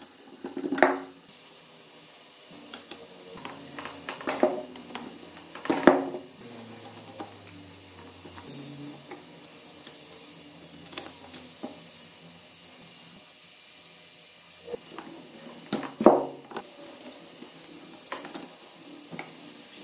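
Metal engine parts and hand tools being handled on a dismantled Honda CRM250 two-stroke crankcase: scraping and rubbing, with several sharp metallic clinks that ring briefly.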